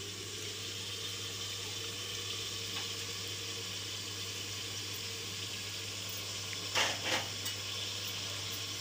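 Mutton frying on full flame in a pressure cooker, a steady sizzle. Sliced capsicum goes into the pot, and a couple of brief knocks sound about seven seconds in.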